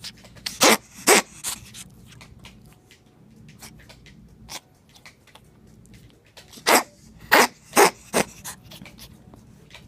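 Ferret coughing in two short fits: two or three sharp coughs about a second in, then four more in quick succession about seven to eight seconds in. It is the cough of a ferret with congestive heart failure.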